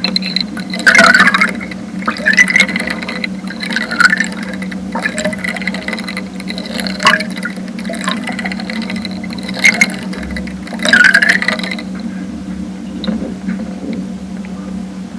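Underwater sound picked up by a homemade hydrophone with a preamp: irregular bursts of water sloshing and bubbling, about half a dozen, over a steady low hum. The bursts thin out after about twelve seconds.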